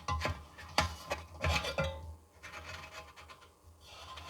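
Recoil starter pulley of a 1966 TECOmaster reel mower turned by hand to wind up its recoil spring, with the pulley scraping and rubbing in its housing and a few sharp clicks in the first two seconds, then quieter.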